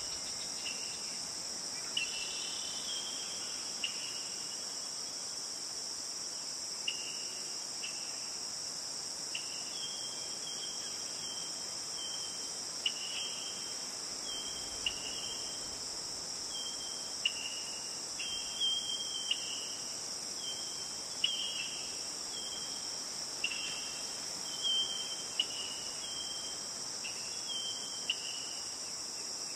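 Steady high-pitched insect drone with short, sharp high chirps every one to two seconds.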